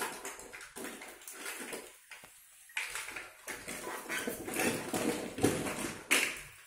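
Plastic toys clattering and rustling as a toddler rummages through a basket of toys, with a few sharper knocks in the second half.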